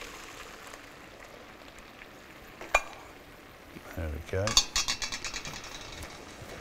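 Cooked peas and their water tipped from a pan into a metal colander, with a faint splashing hiss. A sharp metallic clink comes near three seconds in, then a thump and a quick run of knocks and rattles about four to five seconds in as the pan and colander are handled.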